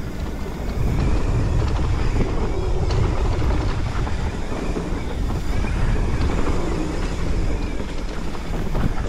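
Mountain bike rolling fast down a dirt singletrack: a steady low rumble of tyres on dirt and air rushing over the handlebar-mounted microphone, with a few short clicks and rattles from the bike over bumps.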